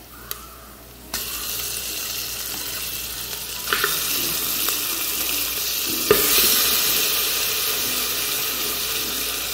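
Seasoned pieces of meat laid into hot oil with onions in an aluminium pot, sizzling and frying. The sizzle jumps up loud about a second in as the meat hits the oil, and a couple of light knocks come as more pieces go in.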